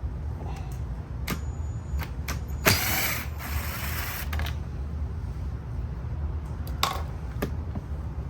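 Scattered mechanical clicks and a short rattling burst about three seconds in, over a steady low hum.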